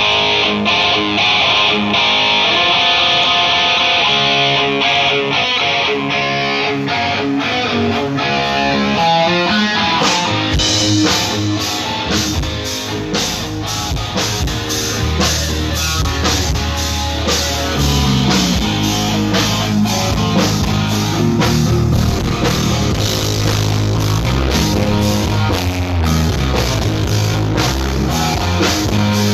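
Rock music played loudly over a concert sound system during a soundcheck. Guitar plays alone at first, then drums and bass come in with a steady beat about ten seconds in.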